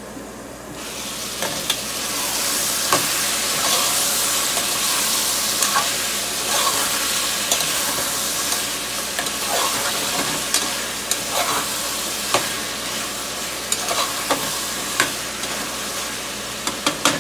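Squash and other vegetables sizzling in hot oil in a steel pot, the hiss starting about a second in, while a metal spoon stirs them and clicks and scrapes against the pot many times.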